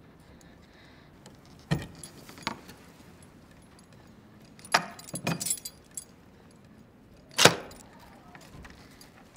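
Metal clinking and clanking as an iron lock on a wooden door is worked by hand with a metal tool. The clinks are scattered: two about two seconds in, a quick cluster around five seconds, and the loudest single clank about seven and a half seconds in.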